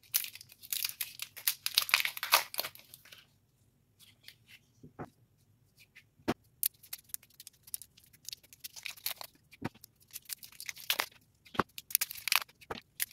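Paper wrappers being torn and peeled off small rubber erasers by hand: crackling tearing and crinkling in two spells, the first few seconds and the last four or so, with a few sharp clicks in the quieter stretch between.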